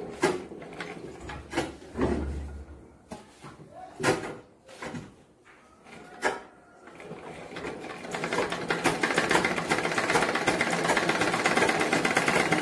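Sewing machine stitching layered frock fabric: a few scattered clicks and knocks at first, then from about seven seconds in the machine runs at speed with rapid, even ticking until it stops near the end.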